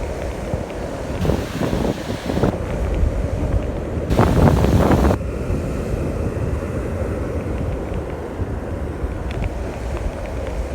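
Wind buffeting the microphone with a steady low rumble, over surf on the beach; a louder hissing surge comes about a second in and another, stronger one about four seconds in.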